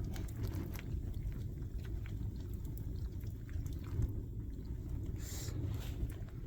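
A hungry dog eating from its food, with faint scattered chewing clicks over a low steady rumble.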